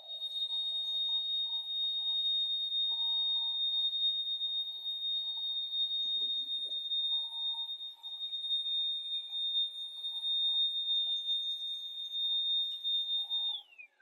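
Proscenic P8 Max cordless stick vacuum running with a steady high-pitched motor whine as it cleans carpet. Near the end the motor is switched off and winds down, its pitch falling quickly.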